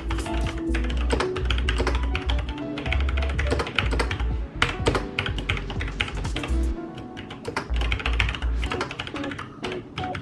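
Rapid typing on a Logitech G613 wireless mechanical keyboard with Romer-G switches: a quick, irregular stream of key clicks and clacks. Background music with a pulsing bass runs underneath.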